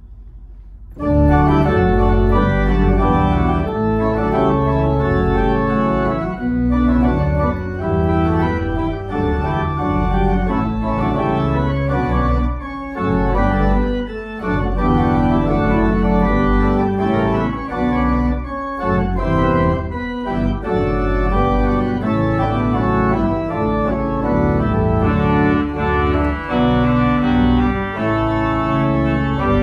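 Church organ played from a two-manual console: sustained chords over deep bass notes, starting about a second in, with a few short breaks between phrases. It is the closing postlude after the benediction.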